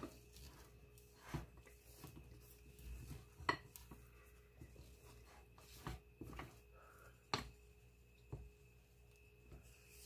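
Faint, scattered scrapes and light taps of a silicone spatula against a mixing bowl as thick buttercream frosting is scraped down.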